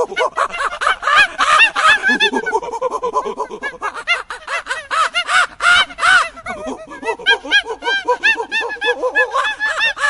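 A troop of long-tailed macaques calling: a rapid, overlapping run of short high-pitched calls, several a second, each rising then falling in pitch.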